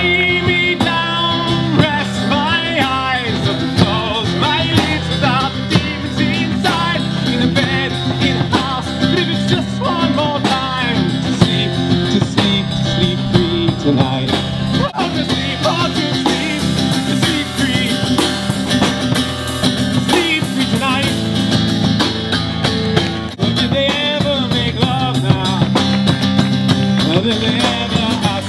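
Live rock-style song played on guitar, with a melodic line that bends in pitch over a steady strummed accompaniment.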